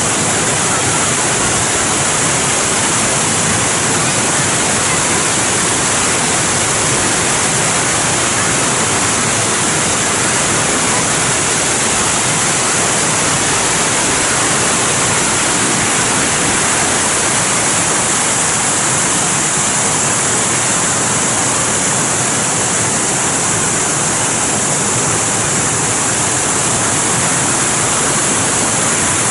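Water from a fountain and waterfall display pouring and splashing down, a loud steady rush of falling water.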